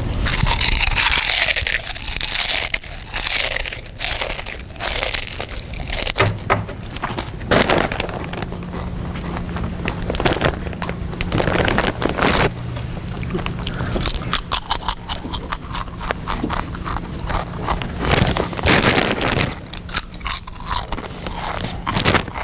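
Loud crunching and chewing of potato chips, with the crinkle of a chip bag as a hand rummages in it; irregular crunches and rustles.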